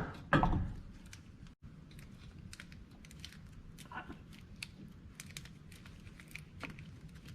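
Faint, scattered light clicks and rustling from hand work as a new rubber front sway bar bushing is fitted onto the bar.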